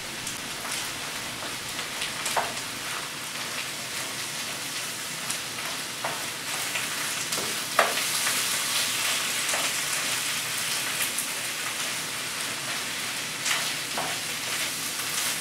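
A pan of meat and mushrooms sizzling steadily on a gas burner as sour cream is stirred into it, with a utensil now and then clicking and scraping against the frying pan.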